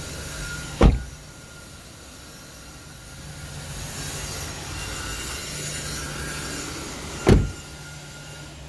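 Two car doors of a Toyota Harrier shutting, each a single heavy thud, one about a second in and one near the end, over a steady low hum.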